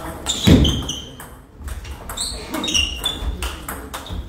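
Table tennis rally: the ball clicking sharply off bats and table, with shoes squeaking on a wooden floor as the players move. A loud thump about half a second in.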